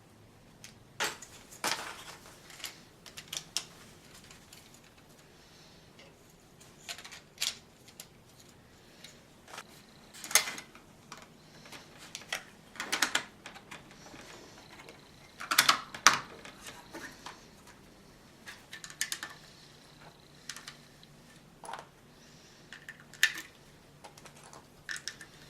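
Plastic LEGO bricks clicking and rattling in irregular clusters of sharp clicks as pieces are handled and pressed together.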